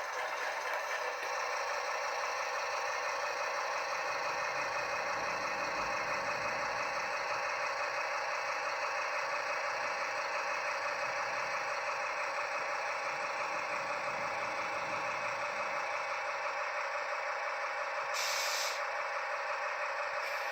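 Sound-fitted Bachmann OO gauge Class 70 model locomotive's onboard speaker playing its diesel engine sound, a steady, thin running with little bass. A brief hiss of released air comes about 18 seconds in.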